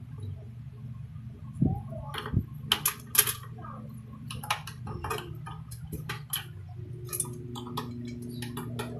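Scattered sharp clicks and light clatter of hard plastic and metal computer parts being handled and fitted inside a desktop case, with a couple of dull thumps about two seconds in, over a steady low hum.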